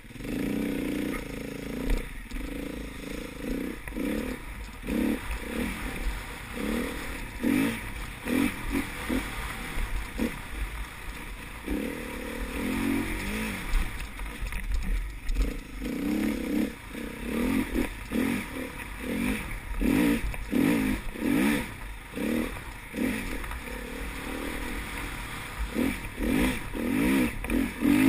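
Enduro motorcycle engine heard from on the bike, revving up and down again and again as the rider accelerates and shifts along a rough dirt track, its pitch climbing and then dropping at each change.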